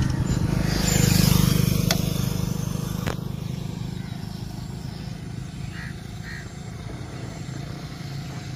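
A motor vehicle driving past, its engine hum loudest about a second in and then slowly fading. Two sharp clicks come in the first few seconds.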